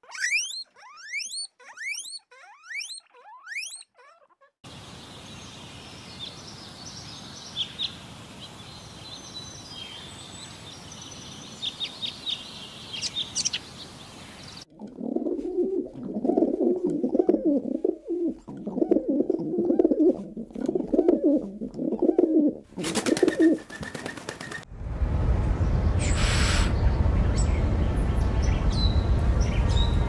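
Guinea pigs squealing in quick rising whistles for about four seconds, then small birds chirping over a faint hiss. From about fifteen seconds in, pigeons cooing in a low pulsing run, with a short burst of noise near the end of it, possibly wingbeats, followed by a steady low rumble.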